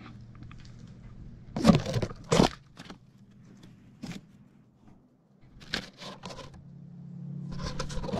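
Handling noise on a GoPro clipped to a tree as it is turned on its mount: scrapes, knocks and clothing rustle right at the microphone, in several sharp bursts, the two loudest close together a couple of seconds in.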